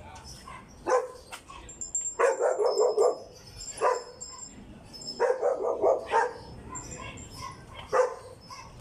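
A dog barking repeatedly, in single barks and quick runs of several, with short pauses between.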